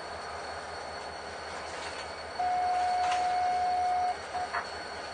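Freight train rolling by with a steady rumble. About two and a half seconds in, a wheel squeals on the rail: one steady high tone held for under two seconds, then two short squeaks.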